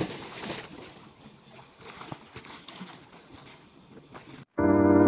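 Water splashing and lapping in a swimming pool. About four and a half seconds in it cuts off abruptly and loud electric piano chords begin.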